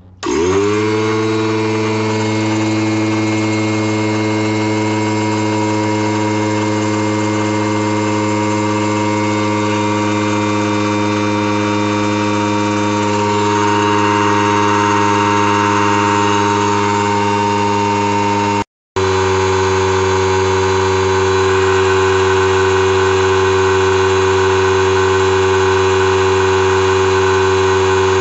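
Mastercraft oil-less air compressor switched on: its motor spins up within half a second and then runs steadily with a hum and whine while it pumps air into its tank. The sound cuts out for a moment about two-thirds of the way through, then carries on.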